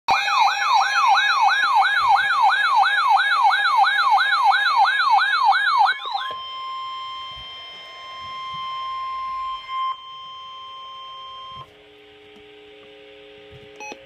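Weather alert radio sounding its Severe Thunderstorm Warning alarm: a fast warbling siren, about three sweeps a second, breaks off about six seconds in to a steady single-pitch alert tone. Near the end this gives way to a quieter chord of lower steady tones.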